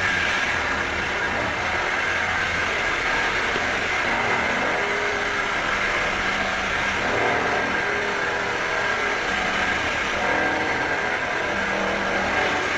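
Electric drill running continuously, a dense grinding noise with a steady high whine over it.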